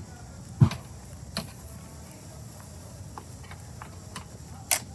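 Metal barbecue tongs clicking and knocking against ribs and a wire grill grate over a campfire: a few separate sharp clicks, the loudest a knock with a low thump about two-thirds of a second in and another sharp click near the end.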